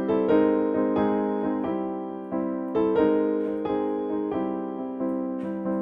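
Background music: a gentle piano melody, notes struck one after another and left to fade.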